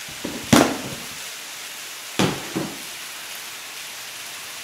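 Food sizzling steadily in an electric cooking pan, with a few sharp plastic clicks and knocks from a hand-wipe canister as a wipe is pulled out, the lid closed and the canister set down; the loudest click comes about half a second in, another about two seconds in.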